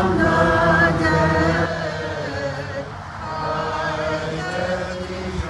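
Voices singing Byzantine liturgical chant together in held, sustained notes. The first phrase is loudest and the singing softens about a second and a half in.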